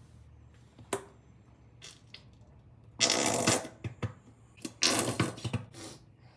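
Squeeze bottle of mustard mayonnaise spluttering as sauce is squirted into the salad bowl, in two squirts of about a second each, after a single click about a second in.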